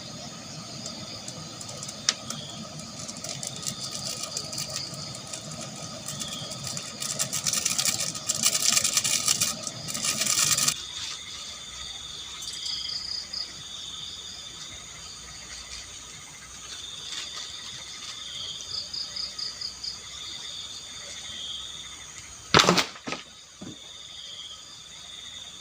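Crickets chirping in short, repeated pulsing trills. A steady hiss fills the first ten seconds or so, grows louder and then cuts off suddenly. Near the end there is one sharp, loud knock, the loudest sound here.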